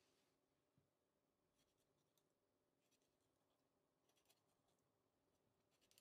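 Near silence, with a few very faint ticks of a chef's knife scoring the back of an Atlantic bonito on a wooden cutting board.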